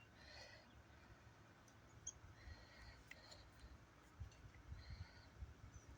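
Near silence, with faint small clicks and rubbing as an in-tank fuel filter is pushed onto the end of a rubber fuel line.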